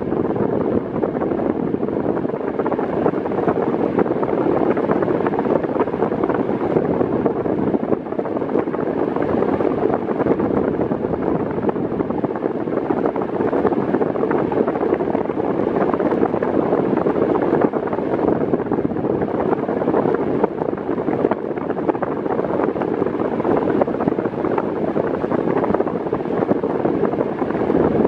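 Arno Silence Force VF40 table fan running at its lowest speed: a steady rush of air from the blades, blowing onto the microphone.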